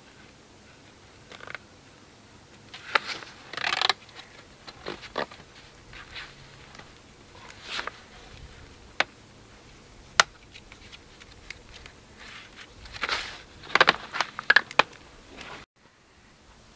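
Wire being twisted by hand to lash a stick cross member onto a wall of upright wooden poles: scattered scrapes, rustles and sharp clicks, with a busy patch about three seconds in and a cluster of clicks near the end.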